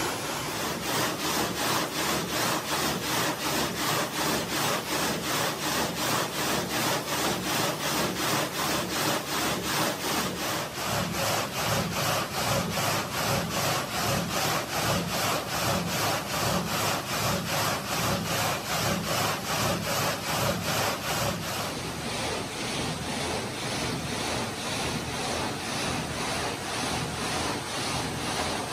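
Multi-blade gang saw cutting a marble block, its blade frame stroking back and forth in a steady rhythm of about two strokes a second, with cooling water pouring over the cut.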